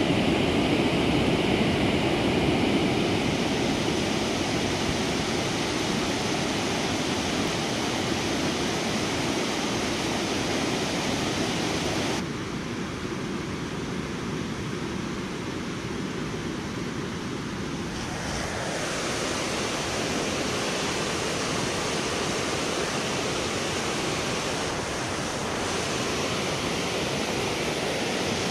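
Steady rush of a fast-flowing river swollen with new floodwater. It drops a little about twelve seconds in and returns about six seconds later.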